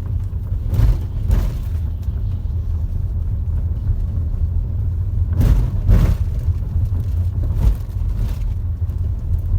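Ford Territory driving slowly over rough cobblestones, heard inside the cabin: a steady low road rumble with a few thumps as the wheels hit bumps. No knocking from the rear suspension: the knock, traced to a loose rear shock absorber rod, has been cured.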